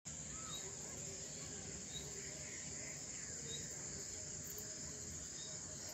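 Insects chirring in a steady high-pitched drone, with a few faint short chirps and a low rumble underneath.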